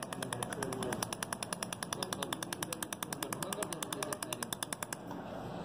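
Pulsed laser welding machine firing a rapid train of laser pulses into a metal piece, each pulse a sharp click, about ten a second. The pulsing stops about five seconds in.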